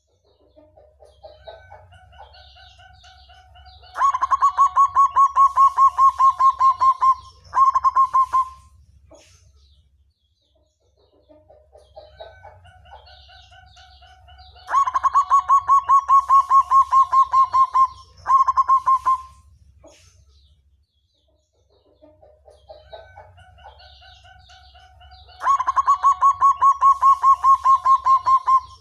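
Black zebra dove (perkutut) cooing its song three times. Each phrase starts with soft rising notes, breaks into a loud, rapid, even trill of notes lasting about three seconds, then ends after a short pause with a brief final burst.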